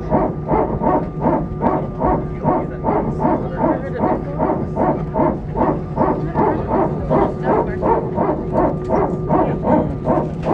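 Airbus A320 power transfer unit (PTU) barking: a rapid, even run of harsh bursts, about three a second. It runs during single-engine taxi because engine 1 has not yet been started.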